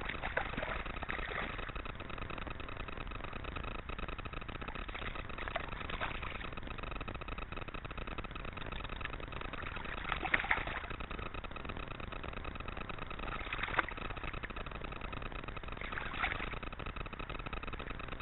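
A handful of short water splashes, the loudest about ten seconds in, as a trout is held in the shallow stream water. Under them runs a steady hiss with a faint high whine.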